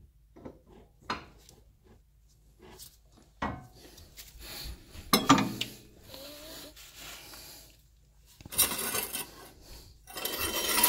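Metal clinks and knocks of car parts and tools being handled under the car while a CV axle is fitted, with the sharpest knock about five seconds in. Near the end come two stretches of scraping and handling noise.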